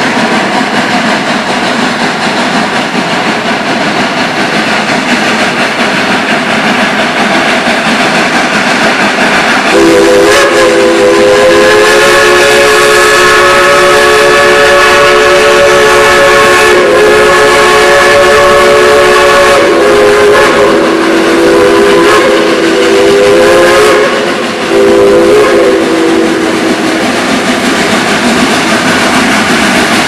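Heisler No. 6 geared steam locomotive working, with a steady rushing noise. About ten seconds in, its L&N three-chime steam whistle sounds a chord, held long and then broken into a few shorter blasts, stopping a few seconds before the end.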